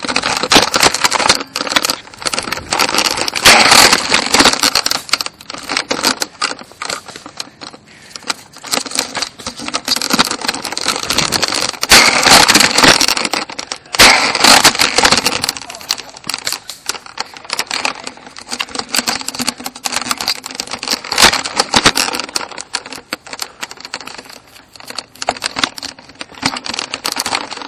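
Constant irregular rattling, knocking and rustling from a camera mounted on a Nerf Quadshot blaster as the blaster is jostled and carried about. It is loudest a few seconds in and again around twelve to fourteen seconds in.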